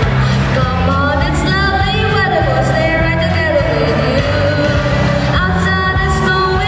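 Live music: a solo melody line, likely sung, gliding between notes over a band with a steady bass line.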